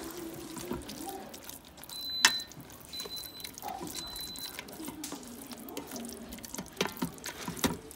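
A plastic spoon stirring thick, creamy macaroni and cheese in a stainless-steel Instant Pot inner pot: wet, sticky squelching with a few clicks of the spoon against the pot. Three short, faint high beeps sound in the first half.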